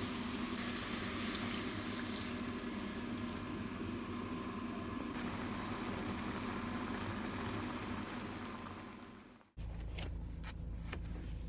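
Pot of beef and vegetables simmering on the stove, a steady liquid bubbling with a low hum behind it, fading out about nine seconds in. After that, a low rumble and a few clicks of handling noise.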